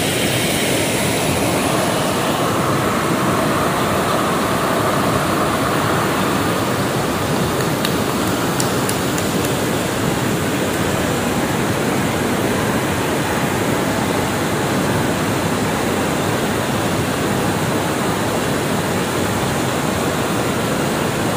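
Steady rushing of flowing stream water, a constant even noise.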